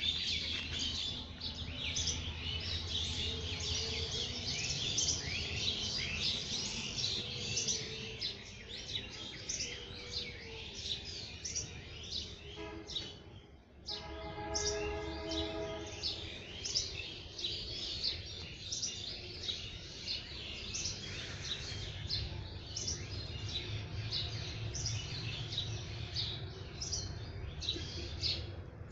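Many small birds chirping and tweeting continuously over a low steady hum. There is a brief dropout just before the middle, then a short pitched call or tone.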